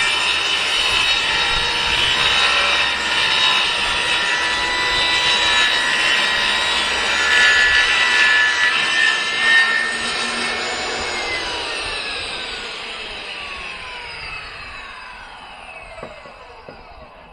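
Kobalt table saw running as its blade cuts through 3/4-inch plywood, then switched off about eleven seconds in, its whine falling steadily in pitch and fading as the blade spins down.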